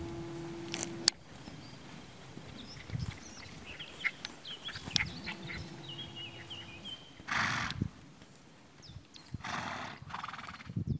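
Horses grazing: grass being torn and chewed in scattered crisp clicks, with two short, loud, breathy snorts about seven and nine and a half seconds in.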